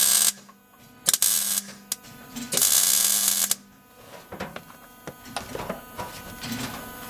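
Electric arc welding in short bursts: three runs of buzzing crackle, the longest about a second, over a steady electrical hum, then quieter crackles and clicks in the second half.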